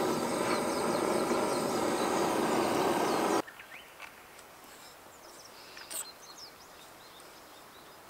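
Handheld butane torch burning with a steady hiss, shut off abruptly about three and a half seconds in. Then a faint outdoor background with a few bird chirps and a small click.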